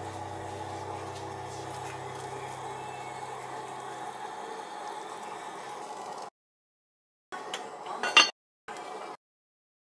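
Soup simmering in a Staub enameled cast-iron pot as enoki mushrooms are stirred in, then the pot's heavy lid clinking down about eight seconds in.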